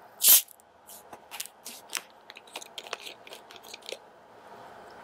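Plastic screw cap of a small Sprite bottle being twisted open: a short loud hiss of escaping carbonation near the start, then a run of small plastic clicks and crackles as the cap turns.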